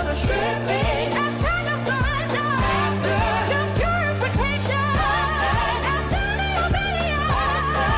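Background music: a sung pop song, the voice wavering with vibrato over sustained bass notes and a steady drum beat.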